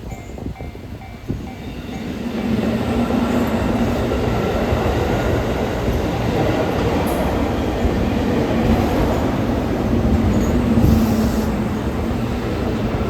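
A level crossing warning bell rings in its repeating pattern for the first couple of seconds. Then a JR Kyushu 783 series limited express electric train arrives and runs through the crossing at speed. The loud, steady rumble and rattle of its wheels on the rails drowns out the bell.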